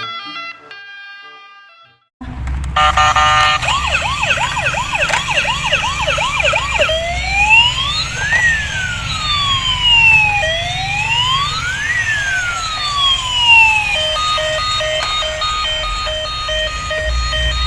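Toy ambulance's electronic siren cycling through its modes. After a short tone jingle fades out, a fast yelp of about three upward sweeps a second starts about two seconds in. It changes to a slow rising-and-falling wail and then, near the end, a steady two-note hi-lo tone, with a low rumble underneath.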